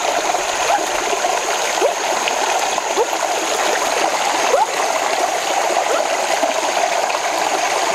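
Shallow rocky stream running over stones in a steady rush, with small gurgles here and there.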